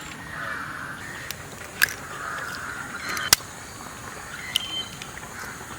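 A few sharp cracks, the loudest about three seconds in: country hen's eggs being cracked on the rim of the masala bowl.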